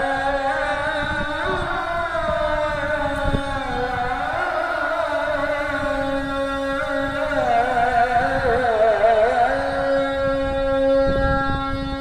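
A solo voice chanting a slow devotional melody with ornamented turns, ending on a long held note, over a steady low drone.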